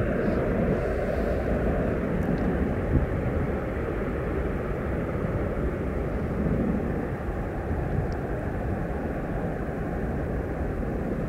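Airbus A350's Rolls-Royce Trent XWB jet engines rumbling steadily as the airliner rolls away down the runway, slowly fading.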